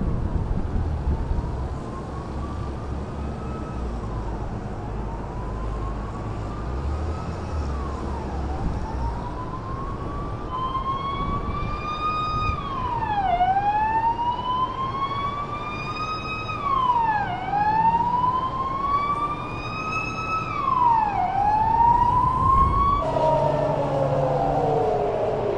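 Air-raid warning siren wailing, its pitch rising slowly and dropping sharply about every four seconds, a missile-attack alert. Near the end it switches abruptly to a lower siren sound with several overlapping falling tones.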